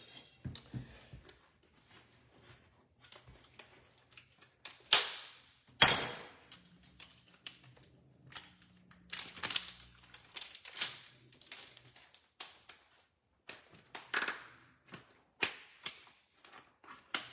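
Kitchen clatter: a string of irregular sharp clicks and knocks from things being handled, with two louder knocks about five and six seconds in.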